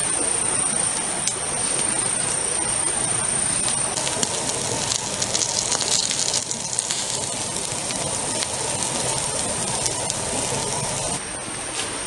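Campfire crackling with sharp pops from about four seconds in, over embers roasting meat on bamboo skewers, above a steady rushing hiss. A high, steady insect drone stops about four seconds in.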